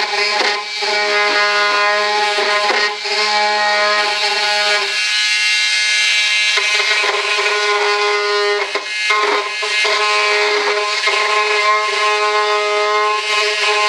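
Handheld rotary tool with a small cutting blade running at a steady high whine while cutting into a model jet's air duct. The level dips briefly a few times as the blade bites into the material.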